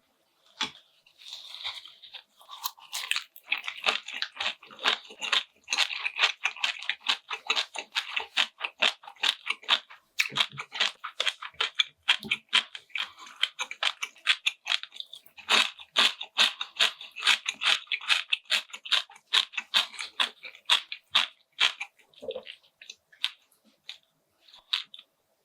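Close-miked chewing and crunching of food in the mouth: a steady run of wet, crackly clicks that goes on almost without pause, with a brief letup about ten seconds in.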